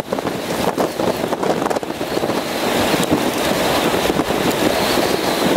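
Strong wind buffeting the microphone: a loud, gusty rushing that grows steadier about halfway through.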